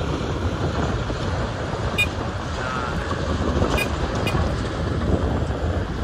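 Wind buffeting the microphone over the low rumble of a large wheel loader's diesel engine as it drives, with a few faint clicks.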